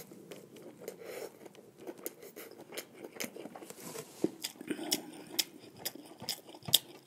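A person chewing food with wet mouth sounds, many short sharp clicks and smacks scattered throughout.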